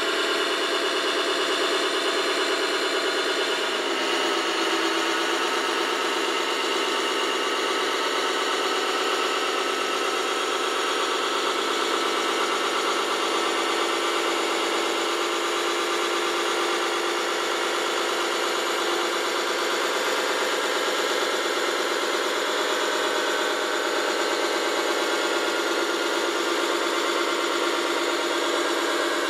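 Steady engine sound from a radio-controlled Liebherr LTM 1055 mobile crane model as it drives slowly up a ramp, with a slight shift in its pitch about four seconds in.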